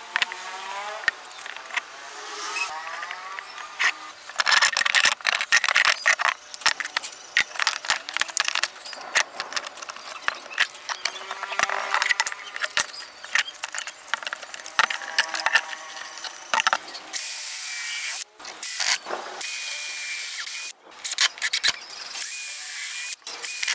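Wooden boards and metal clamps handled on a wooden table: a run of knocks, taps and clicks. In the last several seconds a Makita cordless drill bores into the wood in several short bursts, each a steady whir with a thin whine that stops abruptly.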